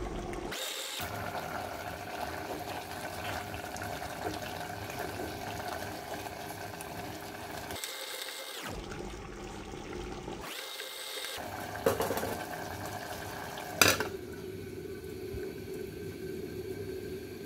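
Bean and fish curry simmering in an aluminium pot, a steady bubbling hiss. Near the end, two short metallic knocks as the aluminium lid is set on the pot, after which the bubbling sounds duller.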